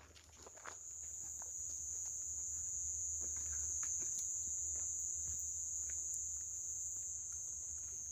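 Steady, high-pitched insect chorus that swells in over the first second and then holds, with a few faint ticks beneath it.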